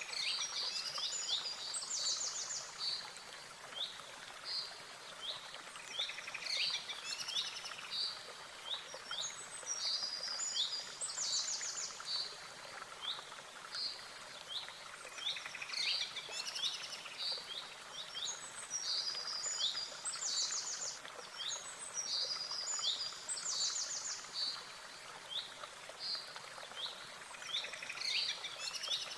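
Songbirds chirping and trilling, the same bright phrases coming back every few seconds over a faint steady hiss.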